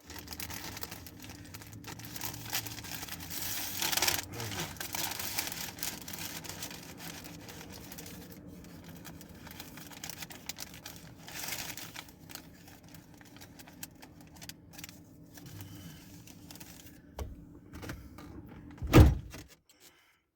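Food packaging being handled: paper and plastic wrapping rustling and crinkling, with scattered small clicks and taps, and one loud thump near the end.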